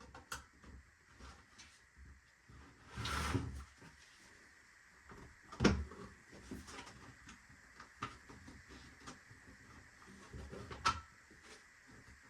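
Toolbox drawer being worked in its slot: a short sliding rub about three seconds in, a sharp click just before the middle, and another slide ending in a click near the end, with light handling knocks between.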